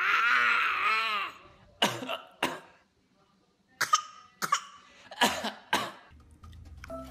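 A toddler's high-pitched voice for about a second, then a run of short coughs coming in twos and threes, with the toddler coughing. Background music with a bass beat starts near the end.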